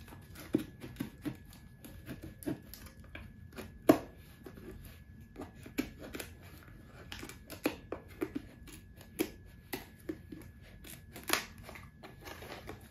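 Scissors cutting the seal over the mouth of a plastic protein tub: a string of irregular small snips and crinkles, with sharper clicks about four seconds in and again near the end.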